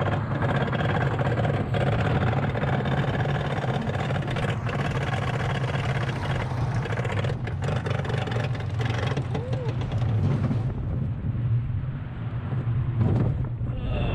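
Wild Mouse roller coaster car being pulled up its chain lift hill: a steady low drone with dense mechanical rattling from the lift chain. About eleven seconds in the rattling stops as the car levels off at the top, leaving a lower rumble of the car on the track.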